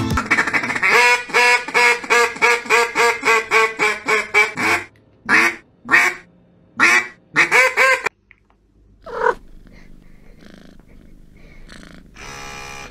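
Squeaky dog toy being chewed by a chocolate Labrador: a quick, even run of squeaks, about three a second, then several slower, longer squeaks that rise in pitch, and a last single squeak past the middle.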